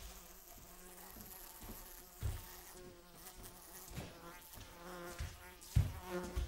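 Faint buzzing of a flying insect, coming and going, with a few dull knocks as large painting panels are lifted and shifted, the loudest near the end.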